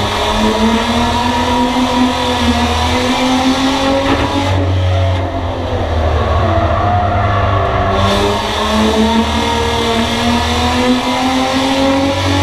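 Bomber-class race car's engine heard from inside the stripped cockpit, its pitch climbing as it accelerates down the straights and dropping back sharply twice as the driver lifts for the corners.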